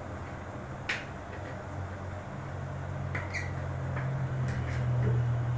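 Light clicks and taps of fingers working a wire into the screw terminals of a plastic switch-and-socket board, with one sharper click about a second in. A low steady hum underneath grows louder toward the end.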